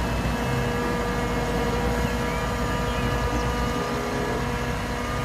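Heavy eight-wheel tipper truck's diesel engine running steadily at a raised, even pitch while the hydraulic ram holds the body up and the load of earth slides out of the back.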